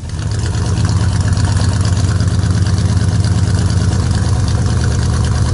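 An engine idling steadily: a loud, even, low pulsing run.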